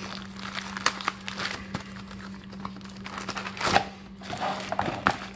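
Plastic packaging crinkling and rustling as it is handled, with a sharp click about two-thirds of the way through.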